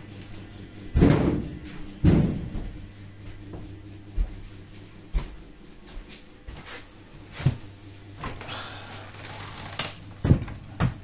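Irregular knocks and clunks of hard flight cases and their metal hardware being handled, about seven over the stretch, with some rustling near the end, over a steady low hum.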